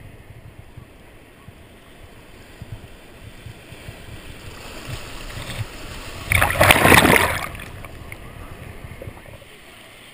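Surf water sloshing around a waterproof action camera held at the water's surface, with a loud rush of water about six seconds in that lasts about a second, then fades.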